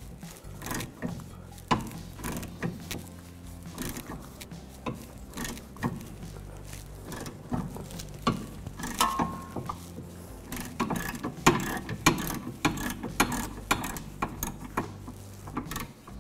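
Hand ratchet with a 14 mm socket clicking in quick runs of sharp clicks, backing the nut off a rear sway bar end link stud.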